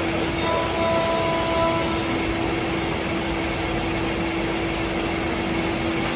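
Spindle of a Masterwood Project 365 five-axis CNC machining centre running and routing into a wooden beam: a steady whine over a constant rushing noise. A second, higher whine joins for about a second and a half near the start.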